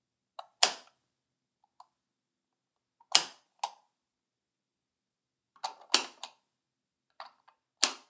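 Sharp, short snapping hits, about a dozen in irregular clusters of one to three, each dying away within a fraction of a second, with dead silence between them. This is the sound of a recording after noise reduction, its background hiss removed.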